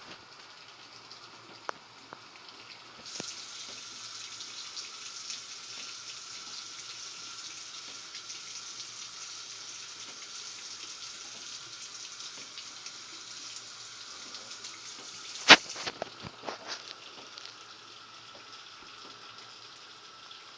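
Bathroom tap running into the sink for rinsing a razor: the flow comes on strongly about three seconds in and eases off about sixteen seconds in, just after one sharp knock, with a few light clicks after it.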